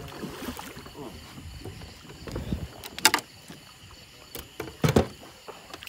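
Gear knocking and clattering in a boat: two sharp knocks, about three seconds in and again just before five seconds, with a few lighter taps and a dull low rumble over a faint steady background.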